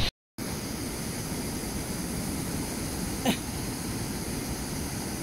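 Steady rushing of a waterfall, an even hiss with no pitch to it, with one brief sharp sound about three seconds in.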